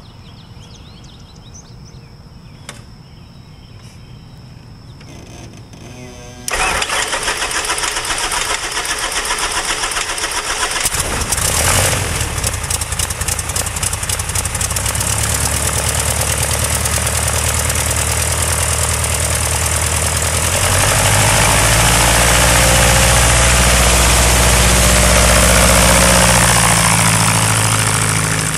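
Open-frame Breezy homebuilt airplane's pusher aircraft engine being started: the engine catches suddenly about six seconds in, revs briefly a few seconds later and settles into a steady run with the propeller turning. It runs up louder about two-thirds of the way through as the plane begins to taxi.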